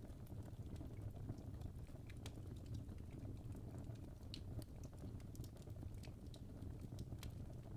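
Wood fire crackling in a fireplace: a steady low rumble of burning with many small, sharp pops and snaps scattered irregularly throughout.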